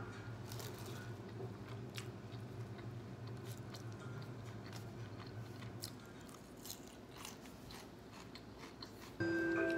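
Quiet eating sounds: scattered light clicks and crunches of chopsticks picking at a fried cutlet salad in a paper-pulp container, over a steady low room hum. Music with chiming tones starts abruptly near the end.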